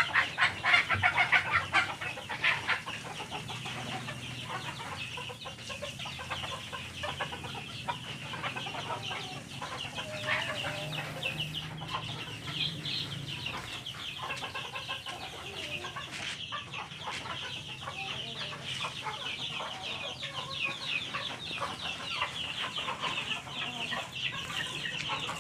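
Chickens clucking now and then over a dense, high-pitched chirring that runs throughout. The first two seconds are louder, with rapid crackling.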